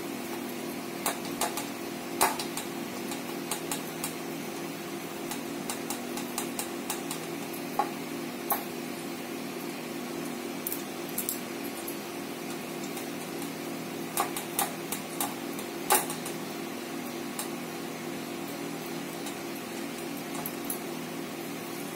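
Scattered sharp clicks and light clinks from hands stuffing spice filling into fried bitter gourds on a steel plate, over a steady low hum.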